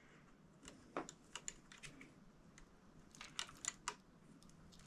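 Faint, scattered small clicks and taps of a plastic PTFE tube being handled and its end pushed into the toolhead fitting of a Bambu Lab A1 Mini 3D printer, with a quick run of clicks about three seconds in.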